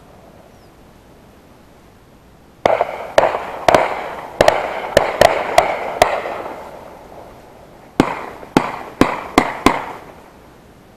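Shotguns firing at a passing duck. About ten shots come in a quick, overlapping run, then after a short pause five more follow about half a second apart. Each shot rolls off in an echo across the marsh.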